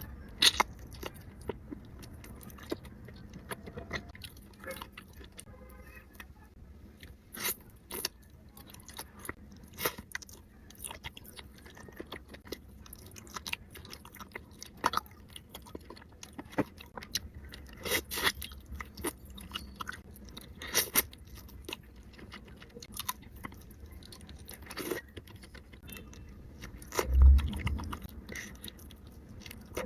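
Close-miked chewing and biting of seafood, with frequent short crunches and wet clicks, and one louder low thud near the end.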